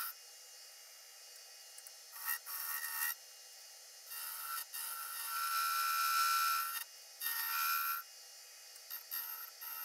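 A turning gouge cutting the outside of a segmented wooden vase blank spinning on a lathe, heard as a hiss of shavings in several passes of one to three seconds each, with short pauses between and the longest pass near the middle.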